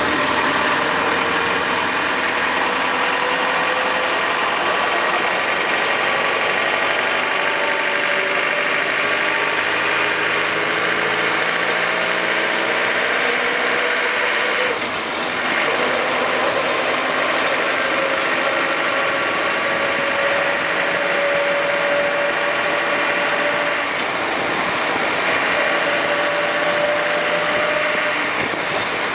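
Land Rover Defender 110 running under way: a steady mechanical drone with a whine that climbs slowly in pitch, drops back about halfway through and again near the end, then climbs again. This is the noise the owner calls annoying.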